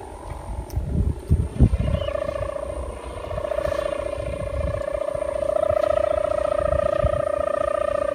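Sendaren kite hummer on a flying kite, the wind-driven bow and ribbon giving a steady humming drone with a fast flutter that sets in about two seconds in and grows louder. Low gusts of wind buffet the microphone in the first two seconds.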